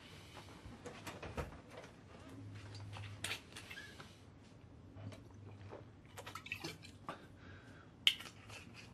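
Scattered light clicks, clinks and knocks of a glass bottle and glass being handled during drinking, with a sharp clink about eight seconds in.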